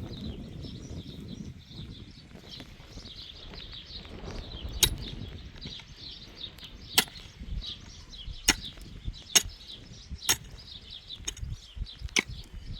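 Sharp, single knocks struck at irregular intervals, about half a dozen loud ones over the last eight seconds. Small birds chirp steadily in the background.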